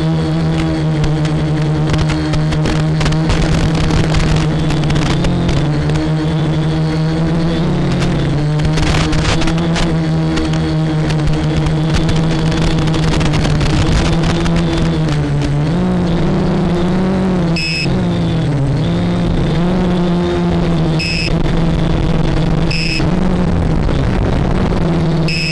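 Quadcopter motors and propellers whining at a steady pitch that wavers up and down as the throttle changes. A few short, high beeps sound in the last seconds.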